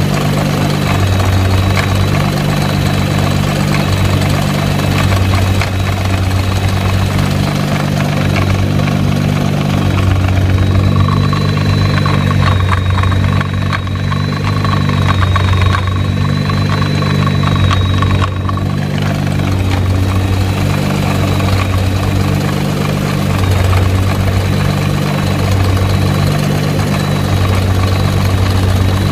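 Nissan GT-R running at idle with its drive shaft rattling: a constant low drone, with a hum that swells and fades every second or two, under a light clicking rattle and a thin steady high whine.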